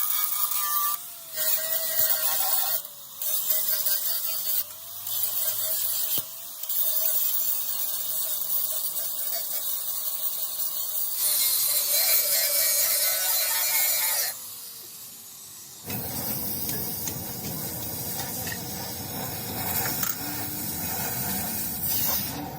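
Workshop tool noise: a high hiss that cuts out and restarts several times over a wavering whine, a fuller hiss for a few seconds, then the whine falls away as the tool winds down, followed by a different, fuller noise.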